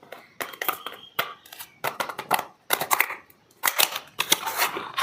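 Bar soap being unwrapped by hand: irregular crinkling and rustling of its packaging, with a denser stretch of crackling near the end.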